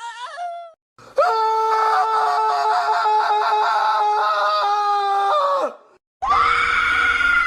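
Angry cartoon-character scream sound effects, a voice processed with effects. The main one is a long held, wavering high cry of about four and a half seconds, and another scream with a low rumble under it starts near the end.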